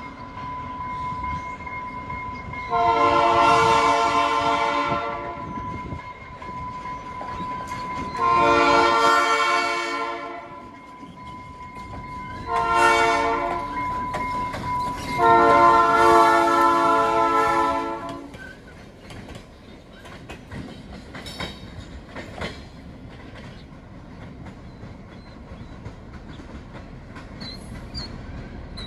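A GP9U diesel locomotive's horn blows the grade-crossing signal: long, long, short, long, with a steady high tone beneath the first blasts. The locomotive and a caboose then roll past, with engine rumble and wheels clicking over the rails.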